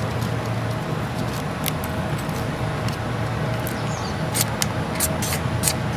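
Sharp, scattered ticks and crackles, coming thicker after about four seconds, as a campfire's birch-bark tinder is lit, over a steady low rumble.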